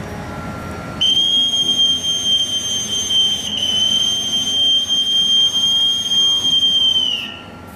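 A boatswain's call (bosun's pipe) piped into the ship's broadcast handset: one long, steady high note held for about six seconds, with a brief break about midway, dropping away in pitch at the end.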